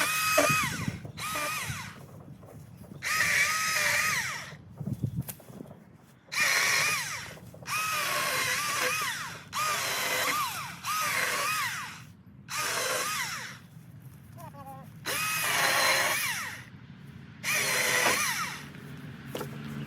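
Milwaukee M18 Fuel cordless chainsaw run in about ten short bursts of a second or so each, its electric motor whining up and dipping in pitch under load as the chain bites into the wood.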